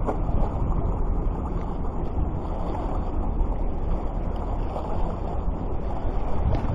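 Steady low rumbling noise of wind and sea, with no clear separate events.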